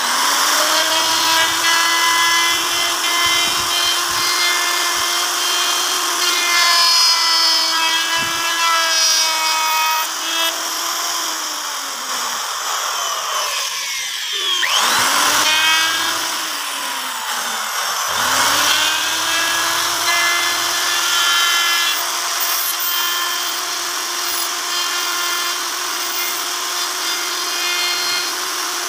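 Handheld electric wood router running and cutting grooves into a wooden door panel: a steady high motor whine over the rasp of the bit in the wood. Its pitch dips and recovers twice around the middle.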